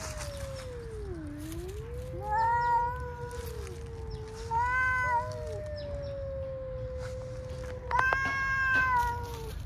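Two cats yowling at each other in a standoff, a caterwauling threat display that comes before a fight. One long, low, wavering yowl runs on almost without a break. Higher, louder yowls break in over it three times, at about two, five and eight seconds in.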